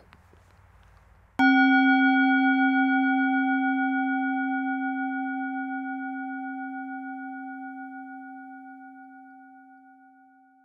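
A singing bowl struck once, about a second and a half in, ringing with a low tone and several higher overtones and a slight wavering, then fading slowly over about nine seconds.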